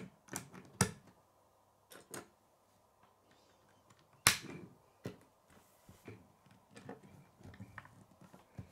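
Plastic K'nex pieces being snapped together by hand: a run of irregular sharp clicks, the loudest about halfway through.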